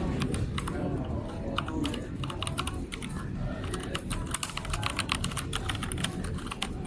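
Typing on a Meta K108 mechanical keyboard: a fast, continuous run of key clicks.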